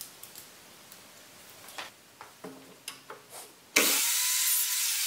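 Light clicks and taps of a marker and steel square on OSB board, then, about three and a half seconds in, a Parkside sliding miter saw starts suddenly, loud, with a high whine, cutting a strip of OSB board.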